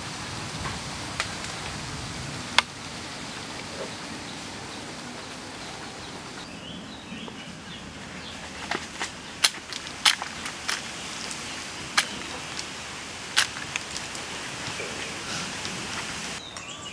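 Steady outdoor background hiss in a wooded clearing, broken by a dozen or so sharp clicks and taps, most of them bunched in the second half.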